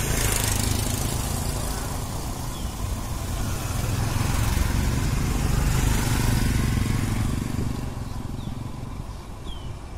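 Motorcycles passing on a wet road, with a steady low engine rumble that swells to its loudest around the middle and fades away near the end.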